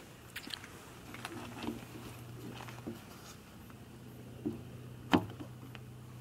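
Orange corrugated plastic RV sewer hose being handled and fitted: scattered light plastic clicks and knocks, with one sharper knock about five seconds in, over a steady low hum.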